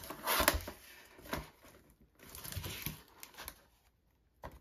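Cardboard mailer box and plastic packaging being handled and pulled open: rustling and crinkling in scattered bursts that die away about three and a half seconds in, then one sharp click near the end.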